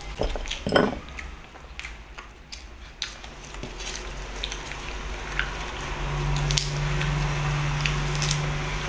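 Hands pulling apart cooked chicken and handling crisp lettuce leaves over a plate, with soft crinkles and scattered clicks and a bump about a second in. A low steady hum comes in about six seconds in.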